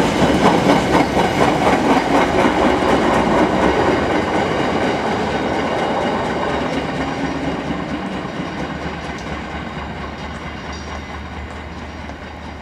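A train running along the track past the station, its wheel and running noise loud at first and fading steadily as it moves away.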